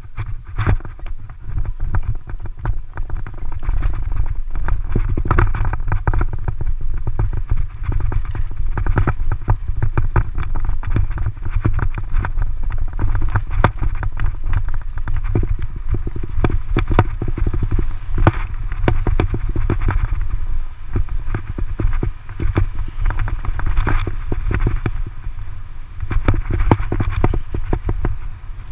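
Mountain bike riding fast over a rough dirt road: a steady low rumble of tyres and wind on the microphone, with dense, irregular rattling and clatter from the bike jolting over stones.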